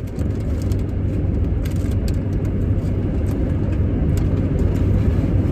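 Steady low rumble of a car with its engine running, heard from inside, with a few faint clicks about two seconds in.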